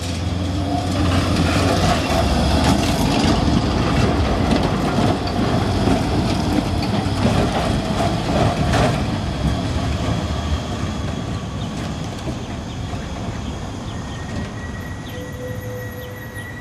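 Leoliner NGT6WL low-floor electric tram running past on its rails. It grows louder as it approaches, is loudest as it passes close, with a few clacks from the wheels on the track, then fades as it moves away.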